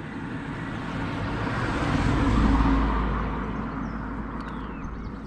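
A motor vehicle passing by, its noise swelling to a peak about two and a half seconds in and then fading away.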